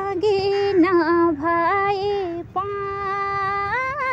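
A young woman singing a Nepali song unaccompanied, holding long notes with small wavering turns; after a short breath about two and a half seconds in, she holds one long note that rises near the end.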